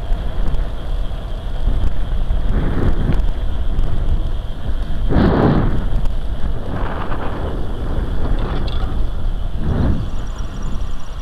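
Wind buffeting the microphone over the low rumble of a recumbent trike rolling along a paved bike path. The wind noise swells several times, most strongly about five seconds in.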